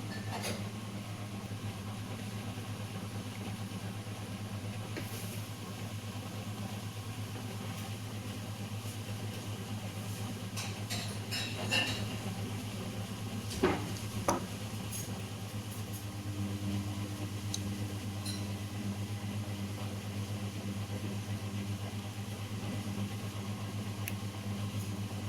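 Steady low hum of a running freezing machine, the kind of frozen LCD separator used to cool a smartwatch screen before it is pulled apart. A few small clicks of tool handling come just before the middle.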